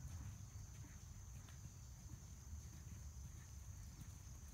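Faint hoofbeats of a horse cantering on arena sand, over a low rumble and a steady high-pitched hum.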